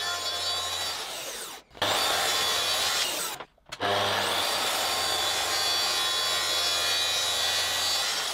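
Makita SP6000K plunge track saw making trimming cuts along the edge of a plywood board, with its dust extractor running. The sawing noise breaks off twice, briefly, in the first four seconds.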